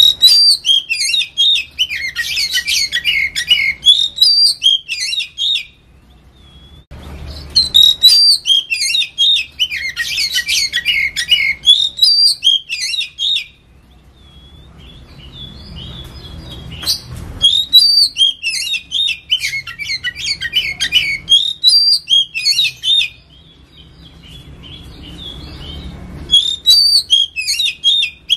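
Oriental magpie-robin (kacer) singing loud, rapid runs of varied high whistles and chattering notes, in four long phrases separated by short pauses.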